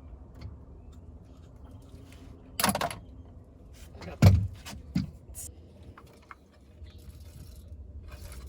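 Handling noises: a short rattle, then a sharp knock and a lighter one, with small clicks over a steady low rumble.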